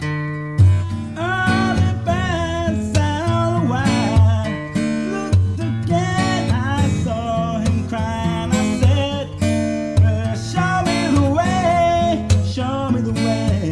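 Acoustic guitar playing chords, with a lead melody over it that slides and wavers in pitch: an instrumental break in a folk or country song.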